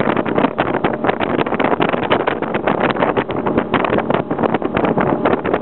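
Wind buffeting the microphone in quick, uneven rushes on an open Marada 2100 MVB powerboat running fast, with the boat's engine droning faintly underneath.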